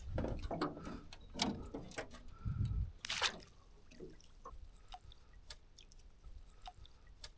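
Water dripping and lightly splashing, with scattered small clicks and a few soft knocks, busier in the first three seconds and fainter after.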